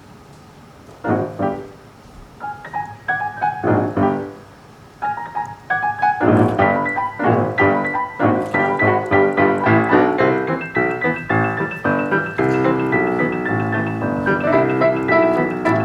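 Piano music: after a near pause, a few separate chords, then from about six seconds in a fuller, busier passage of quick notes.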